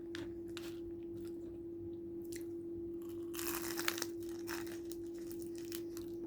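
Close-up chewing and crunching of crispy fried chicken, with irregular bites and a denser crunch about three and a half seconds in, over a steady low hum.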